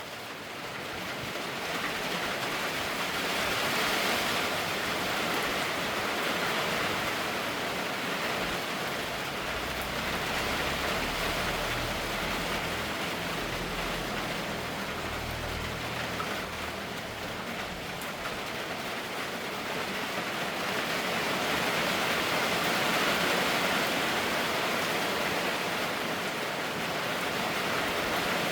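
Steady rain falling, swelling heavier and easing off in slow waves, with a low rumble underneath for a while in the middle.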